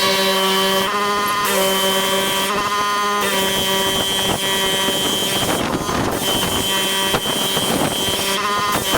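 Pressure washer running steadily, its motor holding one constant pitch under the hiss of the water jet; the spray hiss breaks off briefly several times.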